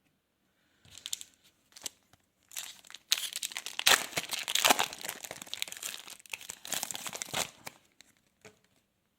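Plastic wrapper of a trading card pack crinkling and tearing as it is opened: a few short crackles, then a few seconds of dense crinkling that dies away.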